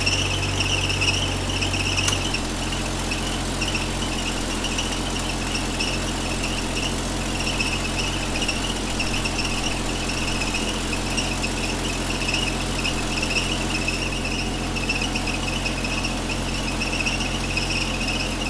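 1964 Chevy Nova's engine running while a drive belt squeals steadily and high-pitched, during a refrigerant charge of its newly fitted A/C compressor. The engine's low note shifts about two seconds in.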